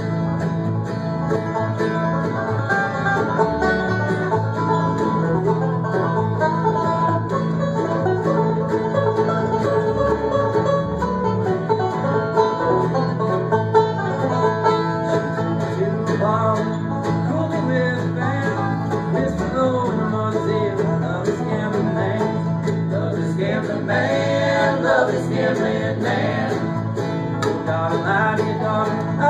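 Live bluegrass band playing an instrumental break on banjo, mandolin, acoustic guitar and upright bass.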